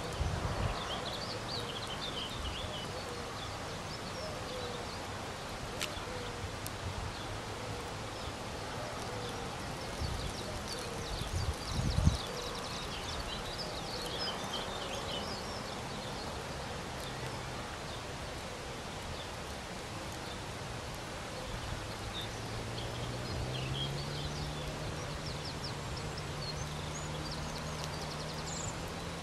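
Open-air ambience: small birds chirping in short scattered calls, with brief gusts of wind buffeting the microphone about ten and twelve seconds in. A faint low hum steps up in pitch about two-thirds of the way through and then holds.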